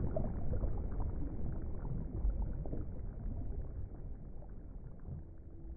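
Muffled water noise, as heard underwater, with nothing above the low and middle range, fading down gradually; a faint steady hum comes in near the end.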